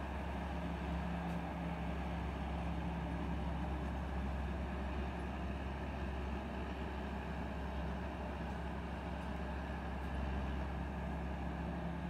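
Tamco ALL NEW PRO Z3000 combine harvester, its Isuzu 6BG1 six-cylinder diesel running steadily under load while the machine cuts and threshes rice. A constant low engine drone with the whir of the harvesting machinery, unchanging throughout.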